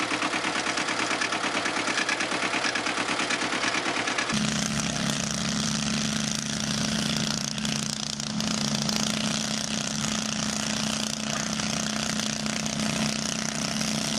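Tractor engine running with a rapid, even chugging. After about four seconds a different engine takes over, running at a steady drone.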